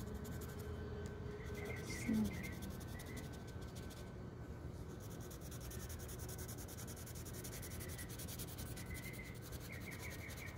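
Wax crayon scratching and rubbing across paper in repeated colouring strokes, filling in a sky. A short low sound about two seconds in.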